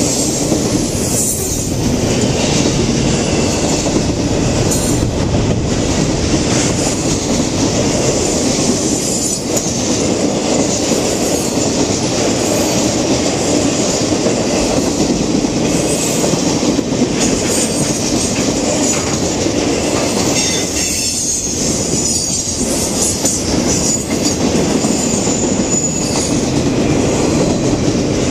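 Intermodal freight train's double-stack container cars and trailer flatcars rolling past close by: a steady, loud noise of steel wheels running on the rails.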